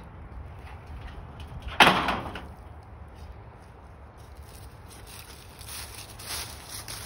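A single loud bang about two seconds in, dying away within about half a second, over a steady low outdoor rumble.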